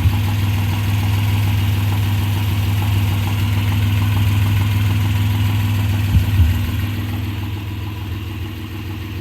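Suzuki H20A 2.0-litre V6 running warm at idle with a fast ticking knock that comes on only once the engine is hot; the owners, who have fitted a new timing chain, suspect the chain, pistons or bearing shells. A couple of short thumps come about six seconds in, and the engine gets a little quieter near the end.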